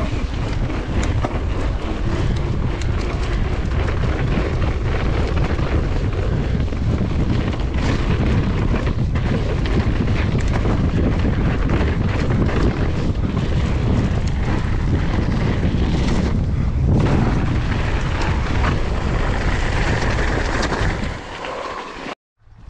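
Wind rushing over the microphone and the rumble of a Nukeproof Mega mountain bike's tyres on a dirt trail as it is ridden fast down the run-in to a jump. The noise drops away shortly before the end.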